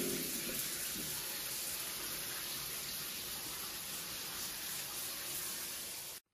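Shower running: a steady hiss of water spraying onto a tiled shower floor, cutting off suddenly near the end.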